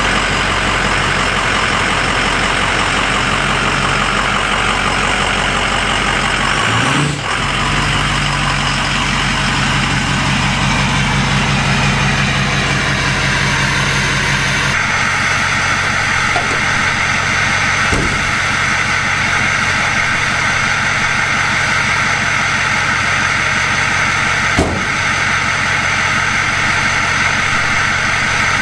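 Ford 6.0 L Power Stroke V8 turbo-diesel idling steadily while it warms up after a cold start. Its tone changes abruptly about halfway through, and a couple of short clicks come later.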